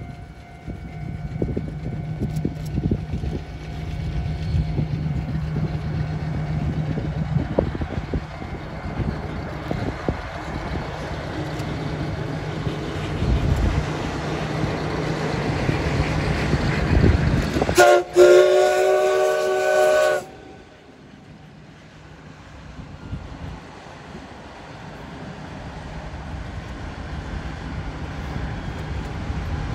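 Steam locomotive hauling a passenger train past with a steady running rumble that grows as it nears. About eighteen seconds in it sounds its whistle, a loud chord of several tones held for about two seconds that cuts off sharply, and the train then runs on more quietly.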